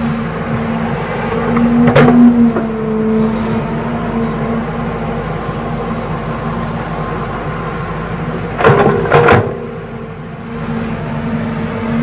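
Hydraulic excavator's diesel engine running steadily under digging load, its tone lifting slightly about two seconds in, with sharp knocks from the bucket working the soil once about two seconds in and twice in quick succession near the end.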